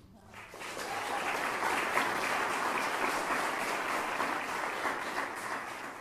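Audience applauding, picking up about half a second in, holding steady, then tapering off near the end.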